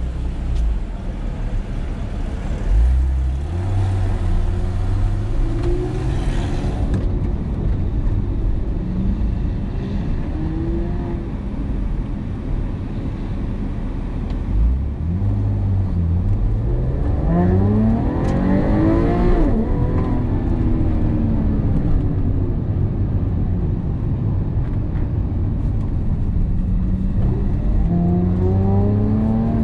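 Porsche 911 (997) flat-six engine heard from inside the cabin, pulling away and accelerating hard through the gears: the engine note climbs in pitch several times and drops back at each shift, the longest and loudest climb about two-thirds of the way through, over steady tyre and road noise.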